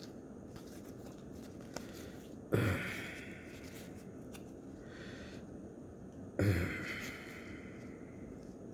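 Quiet handling of trading cards, with two short sudden sounds, about two and a half and six and a half seconds in, each dying away over about a second.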